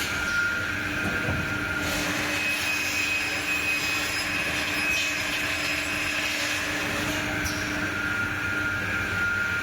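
CNC cut-off saw running: steady machine noise with high whining tones held over it.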